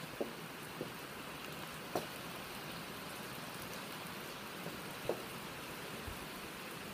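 Heavy rain falling steadily, with a few sharp taps standing out, the loudest about two seconds in and another about five seconds in.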